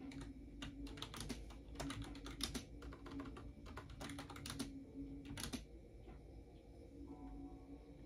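Typing on a computer keyboard: irregular runs of key clicks for the first five and a half seconds or so, then the typing stops.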